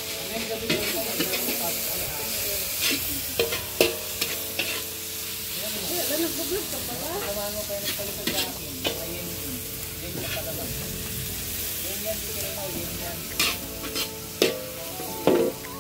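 Food sizzling as it fries in a hot pan while being stirred, with a cooking utensil scraping and knocking against the pan several times, most sharply near the end.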